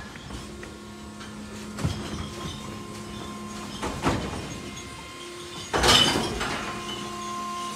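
Electric Mack LR New Way Sidewinder garbage truck at work: a steady electric hum with knocks about two and four seconds in, and a louder clatter about six seconds in.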